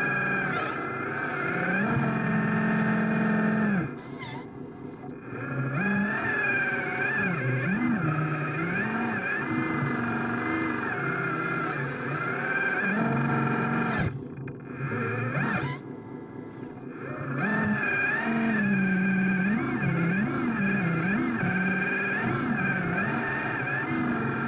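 Small motors of radio-controlled construction models whining, their pitch rising and falling as the machines work. The sound drops away briefly twice, about four seconds in and again around fourteen seconds.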